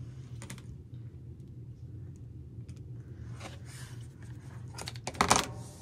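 Rotary cutter slicing through quilting cotton along an acrylic ruler on a cutting mat, trimming the corners off a pieced triangle unit. A brief soft scrape comes about half a second in and another about three and a half seconds in, and a loud sharp knock with a short ring sounds a little after five seconds, over a low steady hum.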